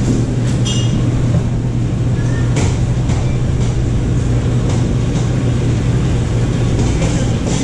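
Steady low hum of shop machinery running, with a few light clicks and clinks over it.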